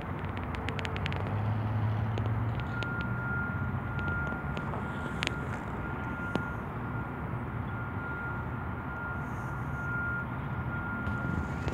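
Outdoor street ambience: a steady rumble of traffic with a low engine hum that is strongest in the first few seconds, and a faint thin whine that comes and goes.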